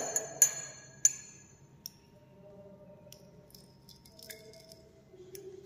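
Laboratory glassware clinking as a glass dropper and test tube are handled: several sharp, ringing clinks in the first second or so, then a few fainter taps.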